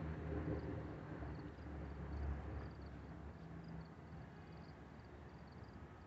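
A low engine hum that fades away over the first few seconds, with faint, repeated high chirps above it.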